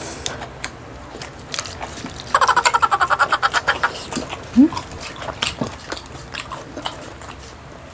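Eating sounds from a mukbang of grilled food: chewing, lip-smacking and short mouth clicks scattered throughout. A little over two seconds in, a rapid pulsing sound lasts about a second and is the loudest part.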